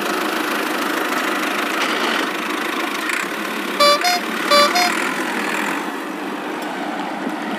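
Battery-operated toy tractor driving itself across the floor with a steady noisy motor sound, and a two-note horn beep sounding twice about four seconds in.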